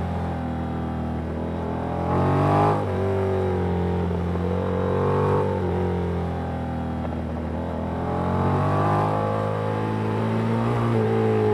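Yamaha MT-07's parallel-twin engine through a Danmoto aftermarket exhaust, heard from onboard while riding, rising and falling in pitch as the throttle is rolled on and off through bends. There is a sharp climb and a sudden drop a little under three seconds in, and two more swells later on.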